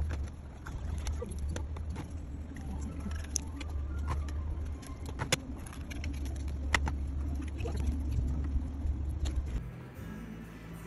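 Scattered sharp clicks and scrapes of an oyster knife prying at oyster shells, over a steady low hum that stops near the end.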